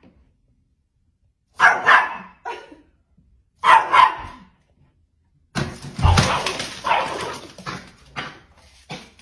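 Small poodle barking sharply at the front door, in short bursts about two and four seconds in. About six seconds in a thump and a couple of seconds of rustling come as mail drops through the door's mail slot, followed by more short barks.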